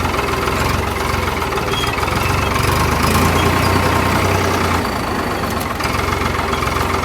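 Tractor diesel engine running steadily with an aftermarket turbo whistle fitted, a thin steady tone riding over the engine's low rumble, which swells slightly about three seconds in.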